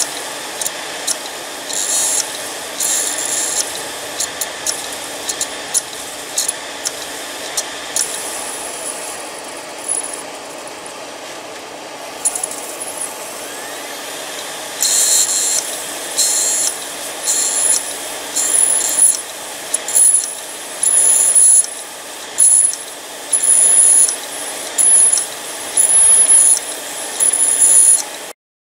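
Hard disk drive with damaged read/write heads: a steady whir from the spinning drive with irregular clicking, then from about halfway, repeated rasping bursts about once a second. This is the typical clicking of a failed read head. The sound cuts off suddenly near the end.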